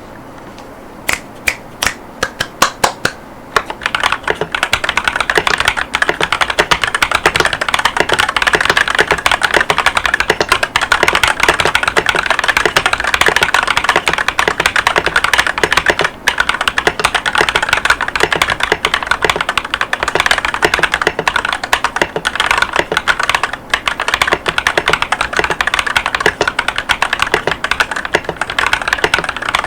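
Typing on an Akko 5108S mechanical keyboard with stock Akko Cream Yellow linear switches (50 gf) and dye-sub PBT OEM-profile keycaps. A few separate keystrokes start about a second in, then fast continuous typing follows from about four seconds, with brief pauses twice.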